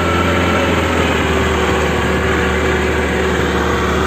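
Boat engine running steadily while the boat is under way, a constant drone with an even rushing noise over it.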